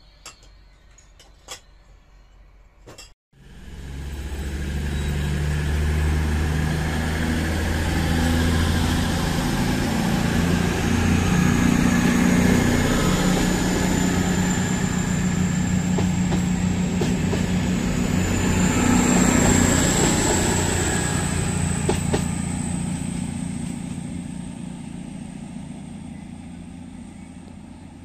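CrossCountry Voyager diesel multiple unit running past, its underfloor diesel engines giving a steady low drone under a thin high whine that rises in pitch. The sound builds up about three seconds in and fades away over the last several seconds.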